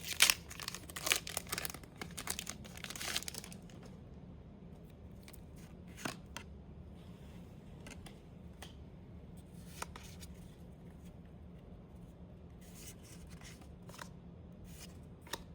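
Pokémon booster pack's foil wrapper torn open and crinkled for the first few seconds, then scattered faint rustles and taps as the cards are handled.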